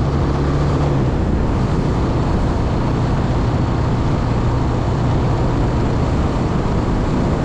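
Motorcycle engine running steadily while riding, its note dropping slightly about a second in.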